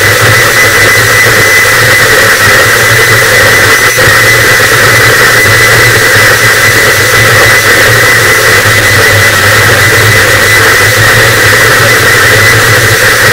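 Harsh noise wall: a dense, unchanging wall of distorted static, very loud, with a thin steady high tone on top and a low rumble underneath.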